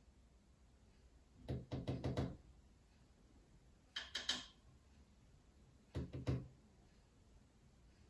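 Green-cheeked conure knocking its beak against its wooden perch in three quick bursts of taps: about six a second and a half in, then three or four each around four and six seconds in.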